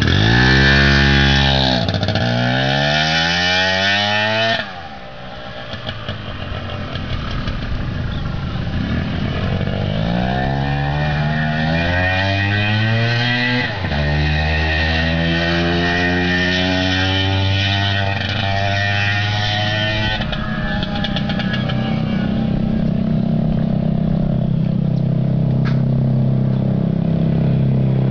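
Yamaha Chappy 80cc two-stroke moped engine revving and pulling away: its pitch climbs, drops suddenly about five seconds in, climbs again for several seconds, drops once more about fourteen seconds in, then settles into a steadier run.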